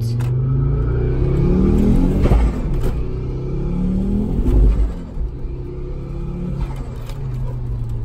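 Mk2 Ford Focus RS's turbocharged five-cylinder engine accelerating hard, heard from inside the cabin. The engine note rises, drops at a gear change a little over two seconds in, rises again and drops once more near five seconds in.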